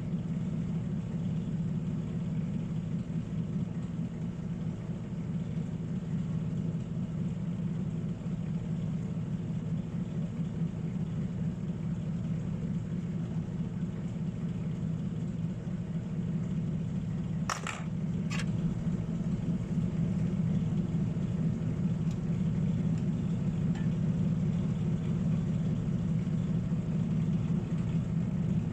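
Steady low electrical hum, with two short clicks about a second apart a little past the middle.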